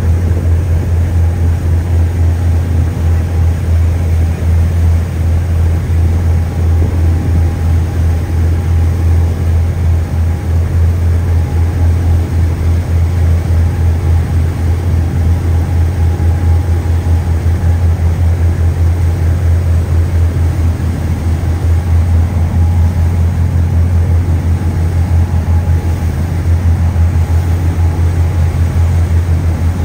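Steady low drone of a ship's engines, heard aboard at sea, with a fast even flutter.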